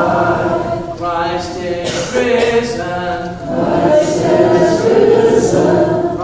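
Unaccompanied singing of the communion prayer, in long held notes.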